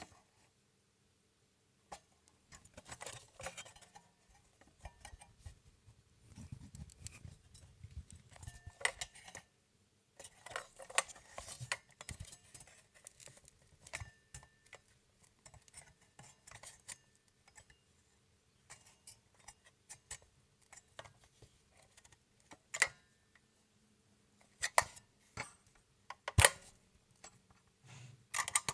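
Irregular metallic clicks and short rattles from an old mechanical alarm clock being handled, as its parts are worked by hand. These are not a steady tick.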